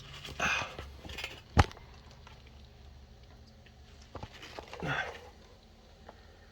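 Rustling handling noises with one sharp knock about a second and a half in, then a faint click and another short rustle near five seconds.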